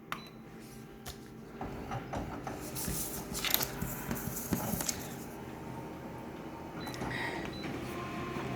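Photocopier making a copy: a few clicks and rustles, then the machine's steady running noise, with a faint thin whine coming in near the end.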